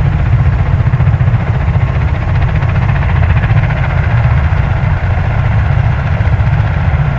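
US Marine Corps V-22 Osprey tiltrotors idling on the ground, their Rolls-Royce T406 turboshaft engines running and proprotors turning. A deep, steady rumble with a fast even beat, with a fainter higher hum over it.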